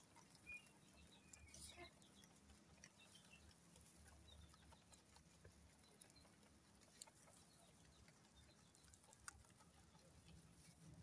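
Near silence with faint scattered ticks and rustles of a group of rabbits nibbling fresh grass and clover, and a few faint chirps between one and three seconds in.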